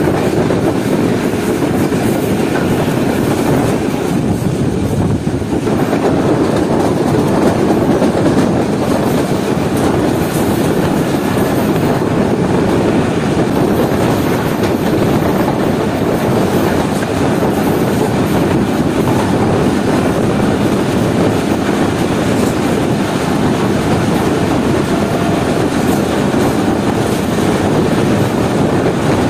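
Pakistan Railways express passenger train running at high speed, heard from aboard: steady, loud running noise of the wheels on the rails and the coach in motion.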